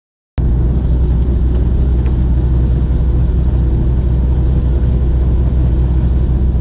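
An engine on the bowfishing boat running at a steady speed, a loud constant low drone. It cuts in abruptly about a third of a second in, after a moment of dead silence.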